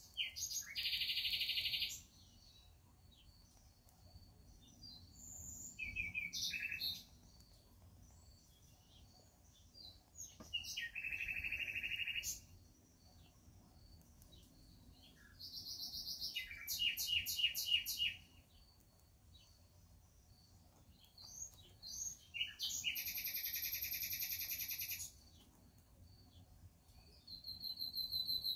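A songbird singing short phrases of chirps and trills, each one to three seconds long, about every five seconds.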